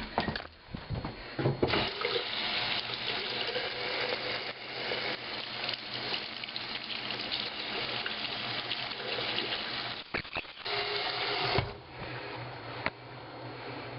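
A few knocks and handling noises, then water running steadily from a tap into a sink. It dips briefly about ten seconds in, runs again for a second, and stops just before twelve seconds.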